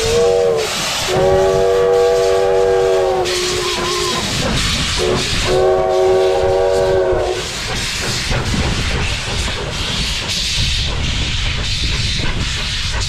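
Steam whistle of a 1911 Baldwin 4-6-0 narrow-gauge steam locomotive blowing several blasts, two of them long, over the loud hiss of steam venting from the engine's open cylinder cocks. The whistle stops after about seven seconds and the hiss runs on.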